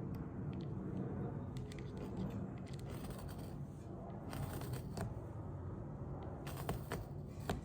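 A blade cutting and scraping into motorcycle seat foam, with scattered small clicks and scrapes over a steady low hum. The clicks grow more frequent toward the end.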